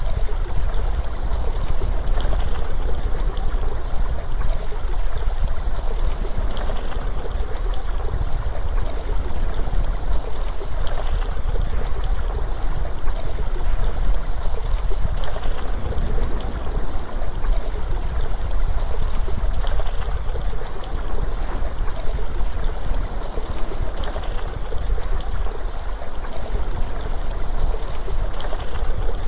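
Steady rushing water, like a flowing stream, running on without a break.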